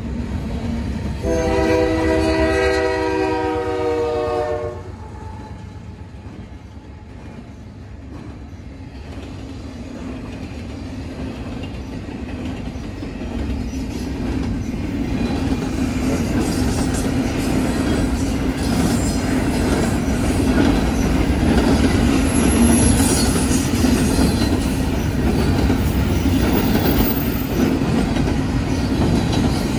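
Locomotive air horn sounding one held chord of several notes for about three and a half seconds, starting about a second in. Then a container freight train rolling past at a crossing: a steady rumble of steel wheels on rail that grows louder.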